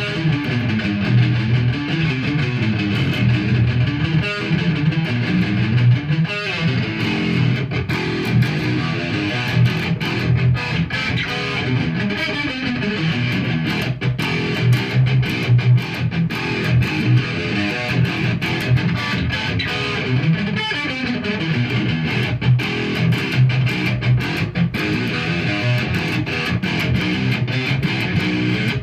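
Solo guitar playing an unbroken stream of quickly plucked notes over low bass notes.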